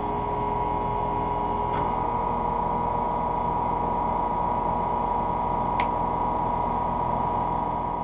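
A 2010 Carrier Performance Series 3-ton central air conditioner's outdoor condenser with a Copeland scroll compressor, running steadily: an even whir of the fan with a steady hum under it and two faint ticks.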